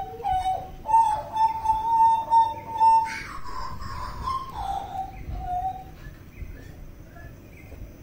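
Hooded butcherbird (jagal papua) singing loud, fluting whistles: long held notes with small slides in pitch, then a rougher, noisier phrase about three seconds in and two lower notes around five seconds. The song grows fainter after about six seconds.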